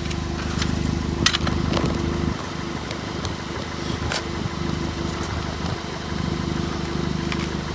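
A vehicle engine idling steadily, with a few sharp clicks over it.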